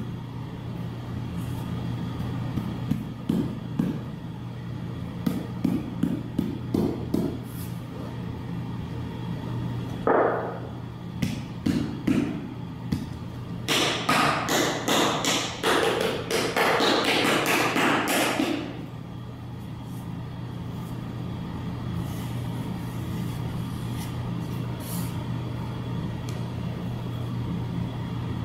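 Floor tiles being tapped and pressed down by hand into fresh mortar: scattered knocks at first, then several seconds of rapid tapping that stops a little past halfway. A steady low hum runs underneath.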